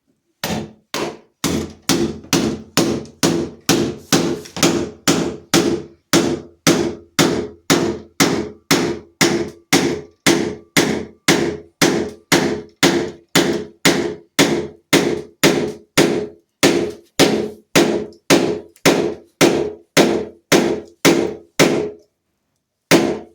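Hammer repeatedly striking a flat-head screwdriver driven against a stubborn interior door latch, sharp ringing knocks in a steady rhythm of about two a second, stopping briefly near the end before one more blow.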